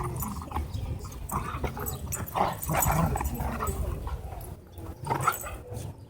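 Dogs whining and vocalizing while a Doberman and a German Shorthaired Pointer pull against each other in a tug of war over a toy.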